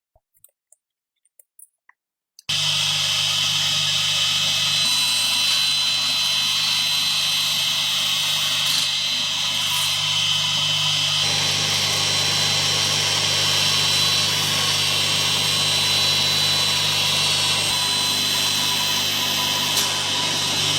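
A power tool's electric motor, silent at first, sets in abruptly about two and a half seconds in and then runs at a steady speed with a constant hum and a high whine.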